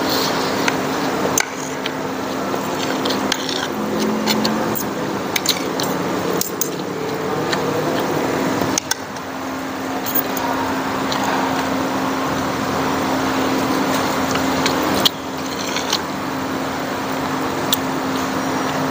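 Metal spoon and fork clinking and scraping on a plate now and then, over a steady mechanical hum.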